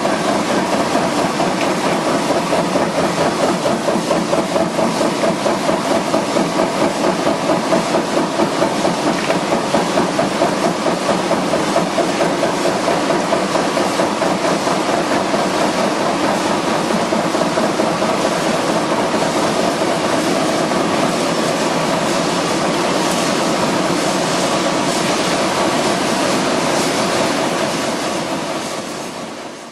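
Machinery of a wood pellet and briquette processing line running steadily, with a fast, even rhythmic pulse in the noise. It fades out near the end.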